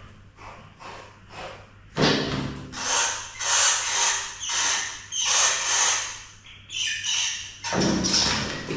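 A few faint taps, then from about two seconds in a run of six or seven loud, harsh animal squeals, each half a second to a second long, in a cat-and-mouse struggle.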